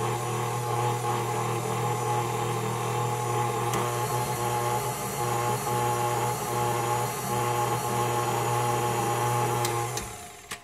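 KitchenAid Artisan stand mixer running with a steady motor hum while its beater mixes egg, milk and oil in the steel bowl. It is switched off about ten seconds in.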